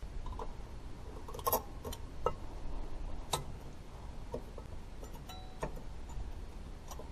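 Light metallic clicks and taps of new rear brake pads being fitted into a Subaru Crosstrek's caliper bracket, a few irregular clicks over a low steady rumble.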